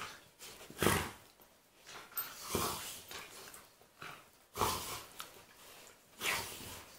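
A golden retriever and a Labrador puppy play-fighting. There are about four short, breathy dog noises, a second or two apart, with quiet between them.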